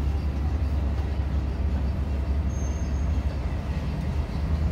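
A steady low rumble, with no clear meowing.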